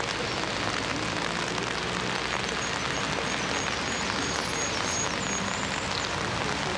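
Steady hiss of rain falling, with a few faint high chirps in the middle.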